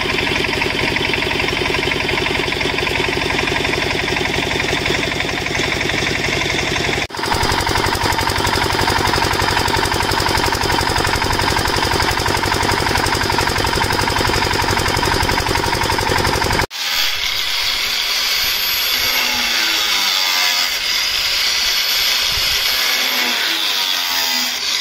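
A small stationary engine driving a water pump runs steadily for boring a tube well, with a brief break about seven seconds in. From about seventeen seconds in, an angle grinder runs as it cuts through white PVC pipe.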